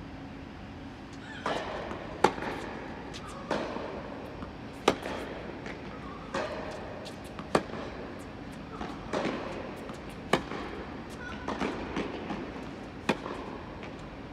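Tennis rally of groundstrokes: five sharp racket-on-ball hits about every 2.7 seconds, with fainter hits and bounces from the far end of the court in between, and short scuffing noises around some of the strokes.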